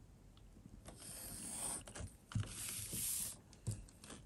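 Graphite pencil scratching on paper as it draws a straight line along a clear plastic set square, in two strokes. It comes with two soft knocks as the set square is shifted.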